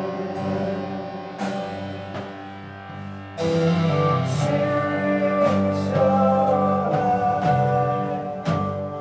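Live rock band playing: sustained electric bass and guitar notes under sparse cymbal hits, swelling sharply louder about three and a half seconds in.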